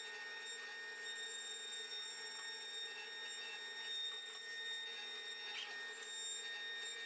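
Masterwood Winner CNC router's spindle running at constant speed as it cuts a plywood sheet: a steady, high-pitched whine of several held tones.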